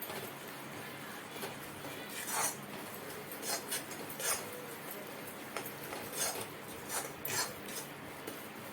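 A metal spoon scraping and knocking against a pan in irregular strokes while a coconut-jaggery modak filling is stirred on a low flame, over a steady background hiss.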